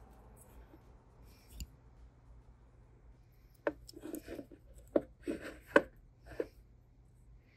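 Small, sharp clicks and taps of hobby tools against a plastic scale-model engine as fine solder wire is worked into place: about half a dozen, bunched together from about three and a half seconds in.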